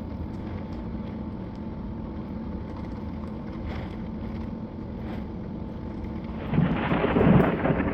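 A steady low rumble of storm background, then a loud thunder rumble breaks in about six and a half seconds in, swelling to its peak shortly before the end.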